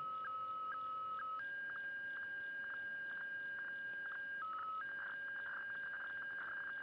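WEFAX (radiofax) weather-chart signal from a shortwave receiver: a steady whistle tone with a short tick about twice a second. About one and a half seconds in it steps up in pitch, dips back briefly near the middle, then turns into a rapid flutter as picture lines are sent.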